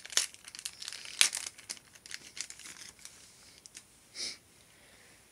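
Thin plastic wrapping crinkling as a phone battery is handled and unwrapped: quick crackles for about three seconds, then a single soft rustle about four seconds in.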